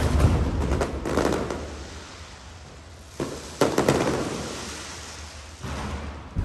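Aerial fireworks shells bursting: a boom right at the start, more bursts about three seconds in and again near the end, each followed by crackling and a long rumble that fades away.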